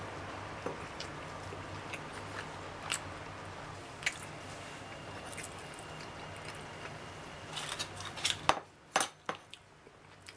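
Light tapping and clinking of a ceramic bowl and brittle eggshells being handled, with a quick cluster of sharper clicks near the end as the eggshells are set into the bowl. A steady low hum sits underneath and cuts off about eight and a half seconds in.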